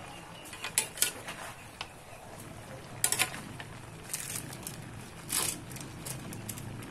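Metal spatula clinking and scraping against a large aluminium wok of stir-fried vegetables, with a few sharp clinks in the first second and more about three seconds in. A short noisy burst comes a little past five seconds.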